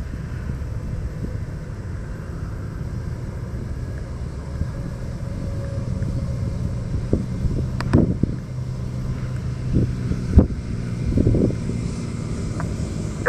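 Small single-engine propeller plane's piston engine running at low power on landing approach, a steady low drone, with wind on the microphone and a few sharp knocks about two-thirds of the way through.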